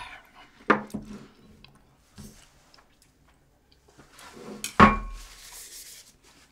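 Tableware being handled: a few scattered knocks, and about five seconds in a louder clink that rings on briefly, followed by a short rustle.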